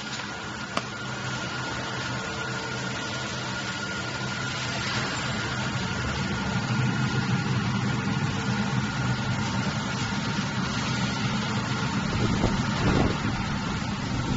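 Corn crusher running steadily while crushing dried corn kernels, with a constant hum and a thin high whine. A single sharp click comes about a second in, and the machine grows louder from about five seconds in.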